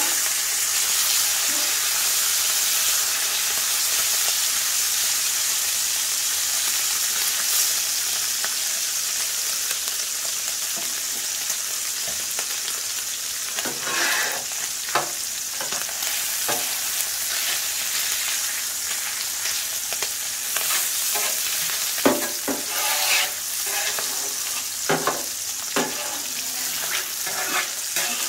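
Bacon and sliced onions sizzling in their grease on a Blackstone 22-inch tabletop griddle over medium heat, a steady hiss. From about halfway through, a metal spatula scrapes and clicks against the griddle top as the food is pushed around.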